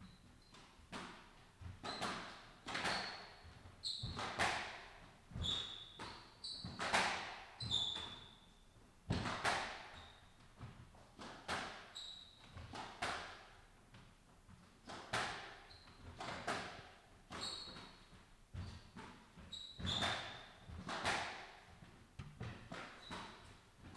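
A long squash rally: sharp cracks of racket on ball and ball on the front wall, about one every second, echoing in the enclosed court. Short high squeaks of court shoes on the wooden floor fall between the shots.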